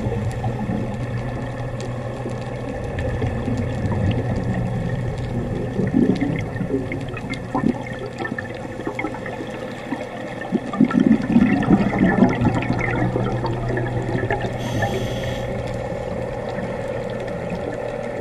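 Underwater sound of a scuba diver's exhaled bubbles, gurgling in irregular bursts over a steady low hum, loudest from about 11 to 12.5 seconds in.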